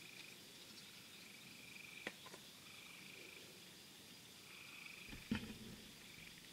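Faint night chorus of frogs and insects: short trills repeating about once a second over a steady high buzz. A sharp click comes about two seconds in and a louder thump just after five seconds.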